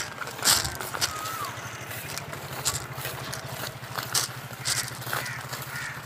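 Crows cawing a few times near the end, over the swish of footsteps through tall grass. A steady low pulsing hum sits underneath from about two seconds in.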